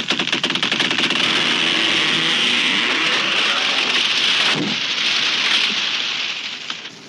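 A tree crashing down: a sudden onset into a long, dense crackle of snapping branches and thrashing leaves, with a heavier thud about four and a half seconds in, dying away near the end.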